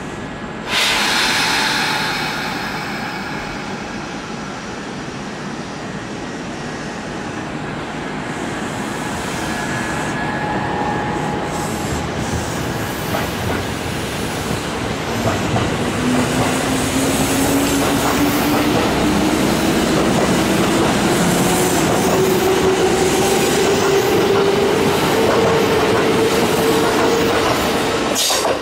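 Electric commuter train at a station platform, its wheels and running gear loud with a sudden surge of noise about a second in. From about halfway its traction motors give a whine that rises steadily in pitch as the train accelerates.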